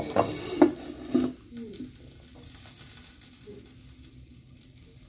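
Clay lid knocking and scraping onto a clay cooking pot (handi) a few times in the first second and a half, then a faint steady hiss from the pot of just-cooked saag.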